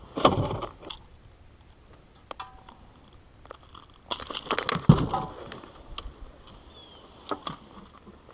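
Handling clatter as a lipless crankbait and its treble hooks are worked out of a catfish's mouth: jingly metallic clicks and rattles, scattered through, busiest in the middle, with one loud knock about five seconds in.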